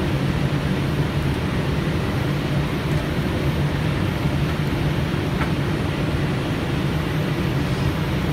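Steady flight-deck noise of a Boeing 777 on final approach: a constant rush of air with a low drone from the engines, even throughout.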